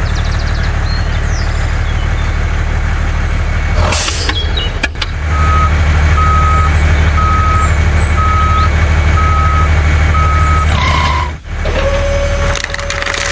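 Truck engine running steadily, with a reversing alarm sounding six beeps about a second apart partway through. Near the end a steady higher tone comes in.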